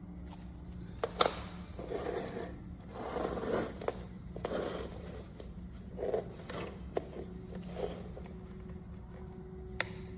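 Scraping and rustling handling noise, broken by several sharp clicks, over a low steady hum.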